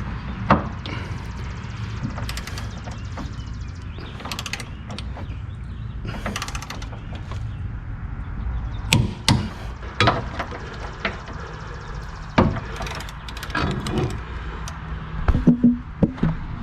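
Click-type torque wrench ratcheting in short bursts on the subframe bolts, which are being tightened to 96 ft-lb. Several sharp single clicks fall in the second half.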